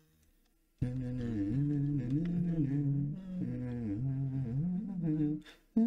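A man humming a wandering tune, starting about a second in after a brief silence.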